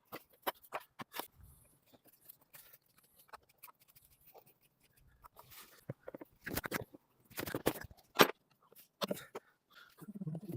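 Scattered clicks, knocks and rattles of hand work in an engine bay, plastic parts such as the air box and its cover being unclipped and lifted out, busiest and loudest a little past the middle.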